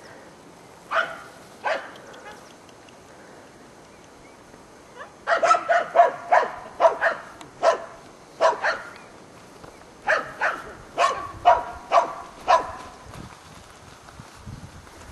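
A dog barking: two barks about a second in, then a quick run of about ten barks from about five seconds in, and another run of about seven barks from about ten seconds in.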